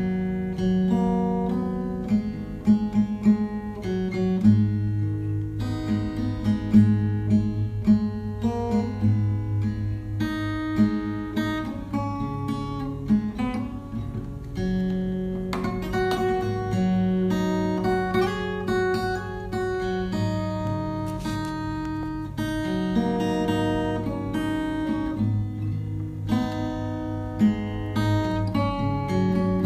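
Background music on acoustic guitar: plucked and strummed notes over held low bass notes, playing steadily.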